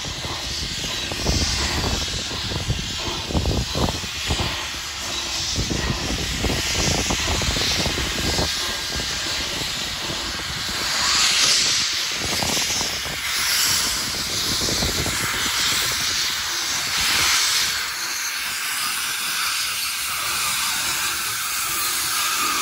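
Steam hissing steadily from NSW 32-class steam locomotive 3237, swelling louder around the middle, with an irregular low rumble through the first half.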